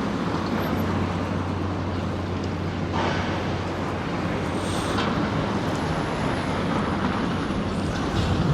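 Steady low drone of diesel engines mixed with road-traffic noise, with two faint short knocks about three and five seconds in.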